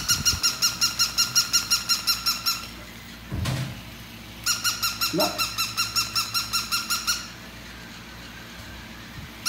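Battery-operated toy dog sounding off electronically: a rapid run of high, evenly repeating beeping pulses, about eight a second, in two stretches of roughly two and a half seconds each. A thump comes between them, and a short rising whine near the middle of the second stretch.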